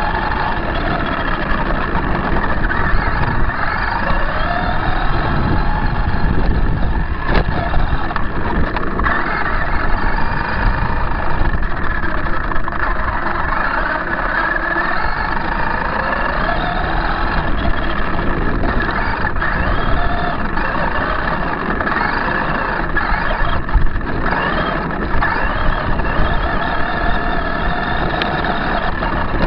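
Losi High Roller radio-controlled truck driving over gravel, heard from a camera mounted on its roof: its motor whine keeps rising and falling in pitch with the throttle over a steady rumble of tyres and chassis.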